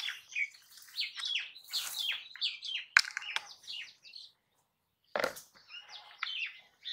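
Small birds chirping busily in quick, falling notes, with a sharp click about three seconds in and a dull thump just after five seconds.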